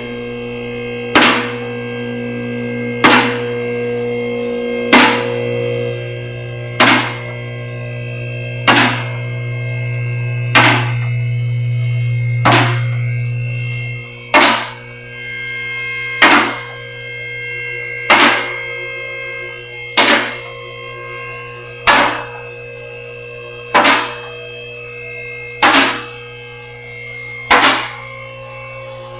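Vehicle lift raising a car. Its electric pump motor hums steadily, and a sharp loud clack comes about every two seconds as the safety locks catch.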